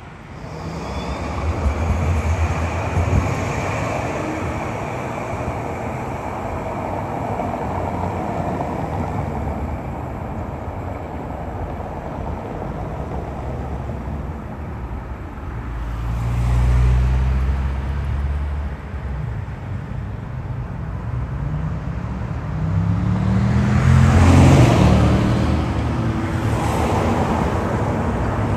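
City street traffic with a tram: a steady rumble of passing vehicles that swells about 17 seconds in. It is loudest around 24 seconds in, where a motor's whine rises in pitch as a vehicle accelerates.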